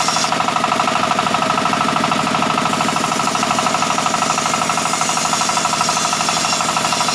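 Sawmill machinery running steadily, a motor with a fast knocking pulse driving the bandsaw. A high hiss drops away a moment in and comes back about halfway through.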